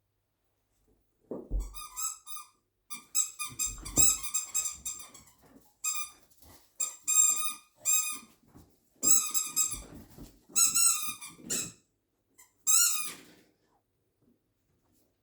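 A poodle chewing its squeaky toy, setting off about seven quick runs of high, pitched squeaks over some twelve seconds, with a few soft thumps.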